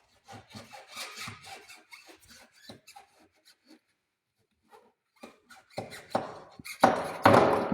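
Hand tools working on a car's front suspension strut: a run of small clicks and scrapes, then louder scraping and clattering in the last two seconds.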